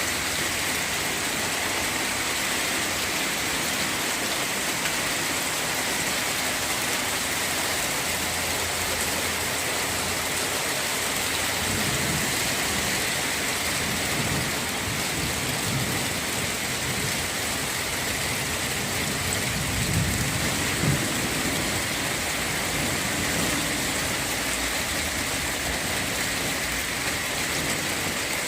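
Steady rain falling, an even hiss. Low rumbles come and go in the second half, the loudest about twenty seconds in.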